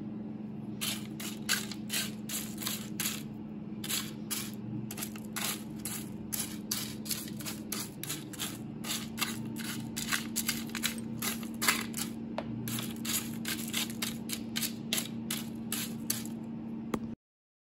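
Freshly made kettle corn being raked and broken apart on a parchment-lined sheet pan with a plastic utensil: a quick, irregular run of crisp rustling crunches, over a steady low hum.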